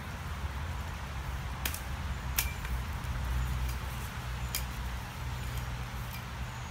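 Three sharp cracks of wood, about one and a half, two and a half and four and a half seconds in, over a low steady rumble.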